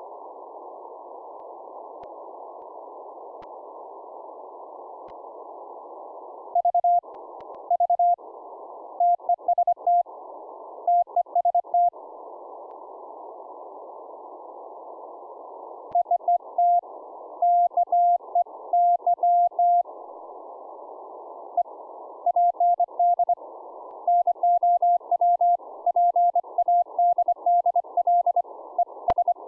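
Hand-keyed Morse code (CW) from an Elecraft K3S transceiver: a single steady tone of about 700 Hz keyed on and off in dots and dashes, sent from a paddle, over narrow-filtered receiver hiss. The hiss cuts in and out around the elements as the full break-in (QSK) switches. Keying starts about six seconds in, pauses for a few seconds in the middle, then resumes until near the end.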